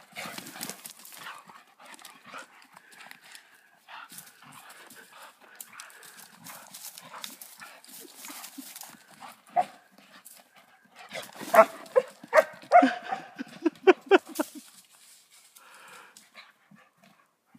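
Two dogs playing tug and keep-away with a stick, scuffling and running over dry forest litter, with a quick run of about ten short, loud barks and growls about two-thirds of the way through.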